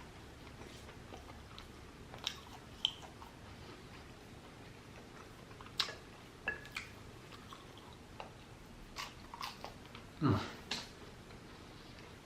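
Close-miked chewing of fried shrimp: scattered crunches and wet mouth clicks, with a louder, deeper sound about ten seconds in.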